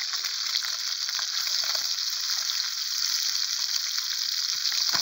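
Pieces of traíra fish frying in hot oil in a skillet over a wood fire, sizzling steadily with small crackles.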